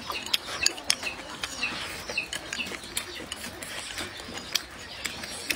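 Close-miked eating: a person chewing food with many irregular sharp clicks, mixed with chopsticks clicking against the bowl.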